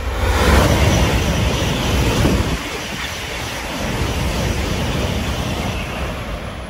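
Shinkansen bullet train passing close by at high speed: a loud rush of air and rail noise that swells at once, holds for several seconds and fades near the end.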